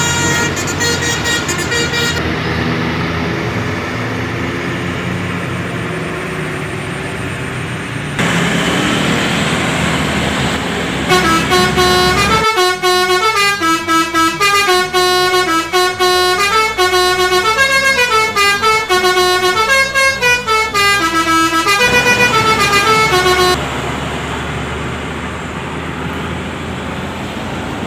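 Multi-tone telolet bus horn. A short blast near the start, then engine and traffic noise, then from about eleven seconds in a long run of quick changing notes played like a tune, which stops a few seconds before the end.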